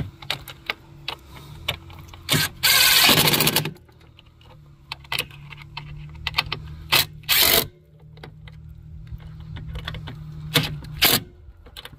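Cordless drill/driver with a socket bit running in the mounting bolts of a new ATV rectifier/voltage regulator, in three bursts: a long one about three seconds in and shorter ones later, between light clicks and knocks of tool handling.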